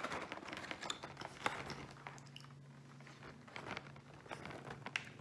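Cardboard advent calendar box being handled and turned over: scattered light taps, scrapes and rustles of fingers on the card.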